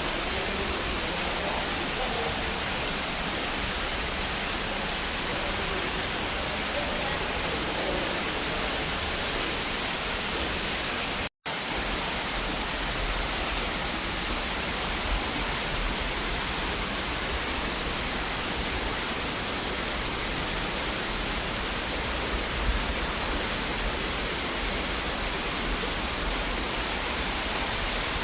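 Waterfall water pouring and splashing in a steady, even rush, with a brief dropout about eleven seconds in.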